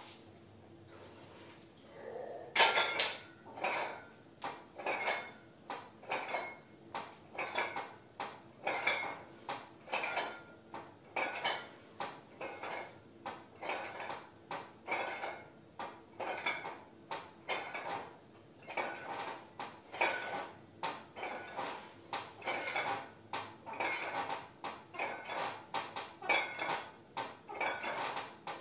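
Metal clinking of a pair of 8 kg dumbbells, a sharp clink about every 0.8 seconds in time with the reps of a chest-supported reverse fly, starting about two and a half seconds in.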